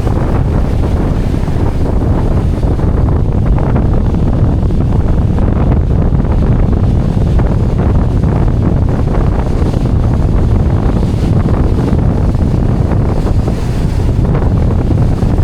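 Strong wind buffeting the microphone in a steady, heavy rumble, with surf washing on the beach underneath.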